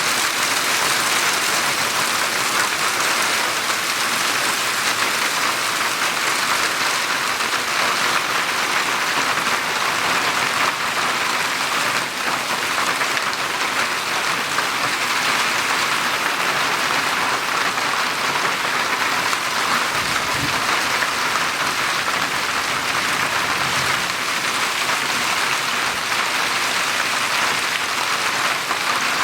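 Hail falling steadily, a dense, unbroken rush of hailstones striking surfaces.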